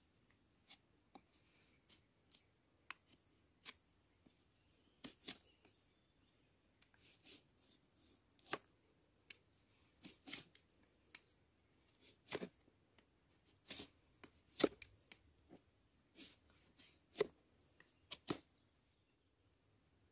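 A blade cutting into wood as a wooden spoon is carved: short, sharp cutting clicks at irregular intervals, roughly one or two a second, some louder than others.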